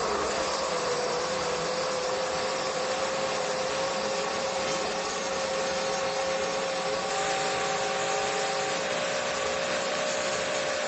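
Battery-powered COKUNST portable mini blender running, its small motor and six-blade assembly giving a steady whirring hum. It cuts off abruptly at the very end.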